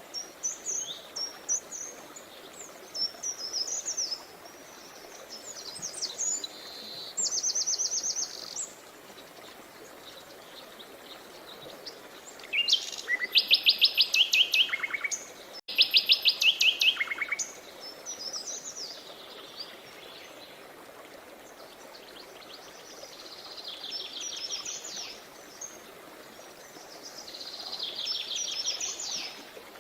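Songbirds singing in bursts of rapid, high trills and chirps, loudest in the middle, over the steady rush of a river. Sound cuts out for an instant midway.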